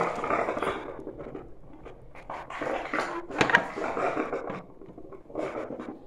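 Homemade rocket stove water heater at work: uneven hissing and gurgling surges as water in its stainless steel coil percolates and flashes to steam, with a few sharp clicks. The water is not flowing fast enough, so the coil is boiling rather than just heating.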